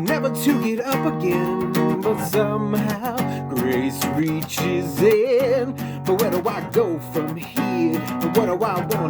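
Acoustic guitar strummed steadily through an instrumental passage of a song, with no singing.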